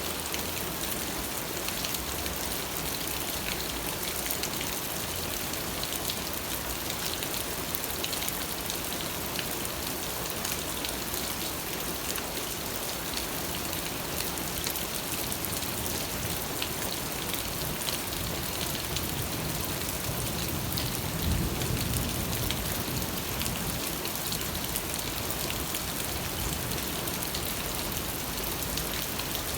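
Steady rain falling on a surface: an even hiss full of small drop ticks, with a brief low rumble about two-thirds of the way through.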